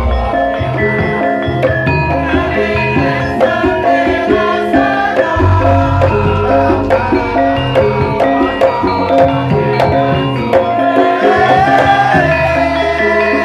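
Live Javanese traditional group music with hand-drum strokes under many held melodic notes, running loud and continuously. The low drum part gets heavier about five seconds in and eases off near the end.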